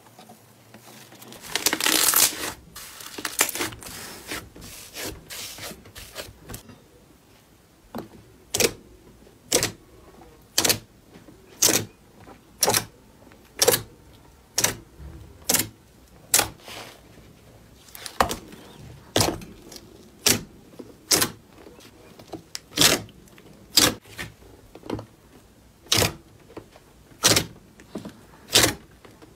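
Crunchy green slime crackling as hands press into it, a dense burst about two seconds in that fades away. Then a dark green slime is pressed flat by hand, giving sharp popping clicks about once a second.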